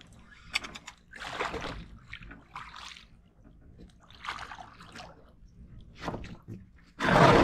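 Water splashing and sloshing against the side of a small fishing boat as a hooked fish is drawn up to the surface, with a much louder splash near the end.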